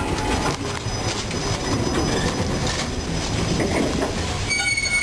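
Loaded freight hopper cars rolling slowly at close range during shunting, their wheels rumbling and clanking on the rails. A short high wheel squeal comes near the end.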